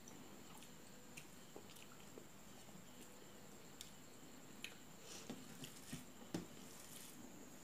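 Faint eating sounds of a person eating rice and fish curry by hand: chewing, soft squishes of rice being mixed with the fingers, and small clicks, a few more of them after about four and a half seconds.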